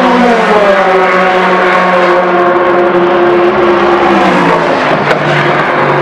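Endurance race car's engine going past, its note sliding steadily down in pitch as it draws away. After a sharp click about five seconds in, another car's lower engine note takes over.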